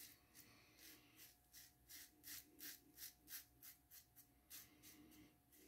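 Double-edge safety razor scraping through lathered beard stubble in short, quick strokes, about three a second.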